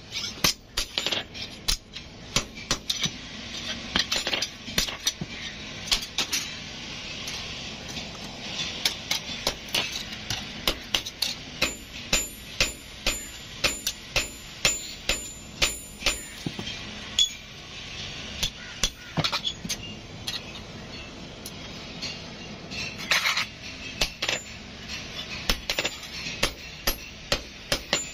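Blacksmith's hand hammer striking a sickle blade on an anvil block: a long run of sharp metallic blows, about one to two a second, thinning out for a few seconds past the middle before picking up again.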